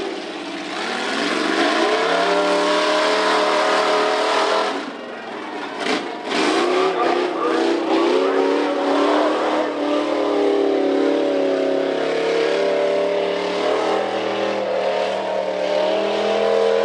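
Tough-truck engine at hard throttle, its pitch climbing and held high, then dropping away about five seconds in amid a few knocks and clatter before revving up again and running hard.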